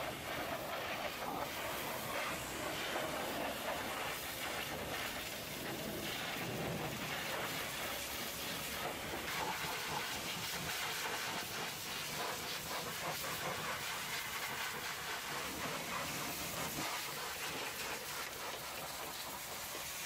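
Hot-water pressure washer jet hissing steadily as it sprays the metal of a semi truck's chassis, water spattering off the surfaces.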